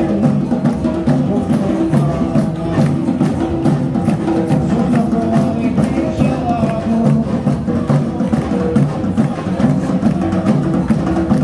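Live samba played by a samba school's percussion section: drums and small hand percussion keeping a steady, dense samba rhythm.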